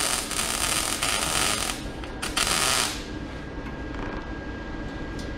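MIG welder (YesWelder MP200) arc crackling and hissing as it welds square steel tubing, in two runs: a long one that breaks off a little under two seconds in, then a shorter one that stops about three seconds in. Afterwards only a steady low background hum remains.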